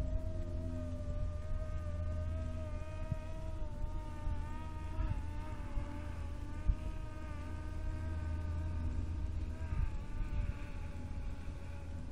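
DJI Phantom 3 Professional quadcopter's propellers and motors buzzing in flight, a steady whine whose pitch wavers slightly as the motors change speed. A low wind rumble on the microphone sits underneath.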